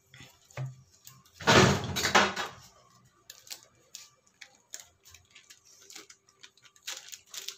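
Hands handling food and utensils while assembling a veg burger: light clicks and taps, with one loud noisy rustle or scrape lasting about a second, starting about a second and a half in.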